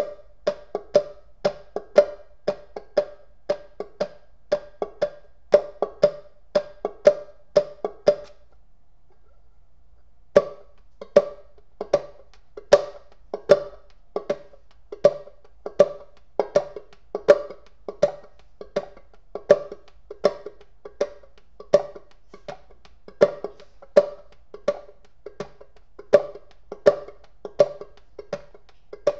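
Banjo played clawhammer style: a steady boom-chuck rhythm of struck single notes and brushed strums. The playing breaks off for about two seconds a little over a quarter of the way through, then picks up again.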